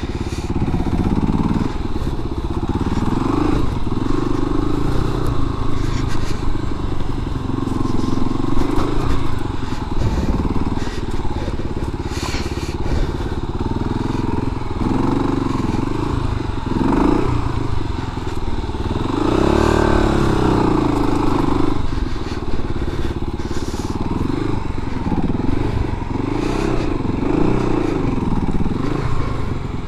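Kawasaki KLR250 dual-sport motorcycle's single-cylinder four-stroke engine running at low trail speed, its revs rising and falling again and again with the throttle. Occasional knocks and clatter come from the bike crossing rocks and roots.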